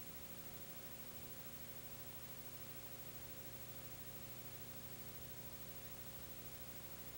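Steady faint hiss with a low electrical hum and no other sound: the empty soundtrack of a silent home-movie film transfer.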